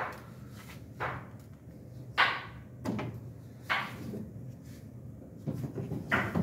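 Plastic trays scraping against the shelving of a rack, a short sound roughly once a second that falls in pitch, over a steady low hum.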